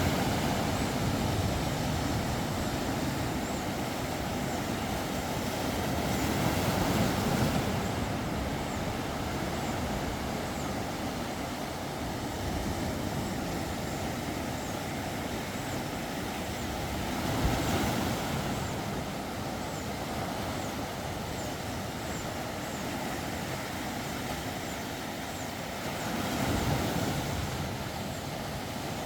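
Sea waves washing onto the shore: a steady rush with a louder swell breaking about every ten seconds.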